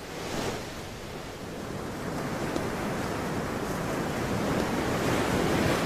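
Sea waves washing onto a sandy beach, a steady rush of surf that slowly builds and then eases off near the end.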